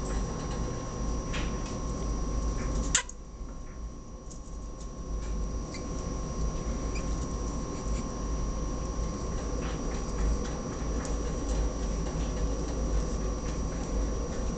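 Pet rats moving about a wire cage: faint scattered scratches and clicks of claws on the bars and shelf, over a steady background hum. A sharp click comes about three seconds in.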